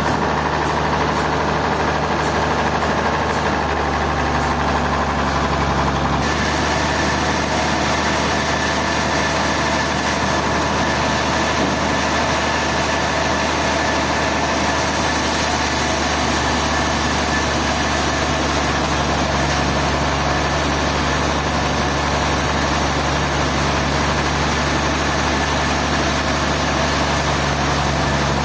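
A heavy engine running steadily at a constant pace, with a low hum. The higher part of the sound shifts slightly about six seconds in and again about halfway through.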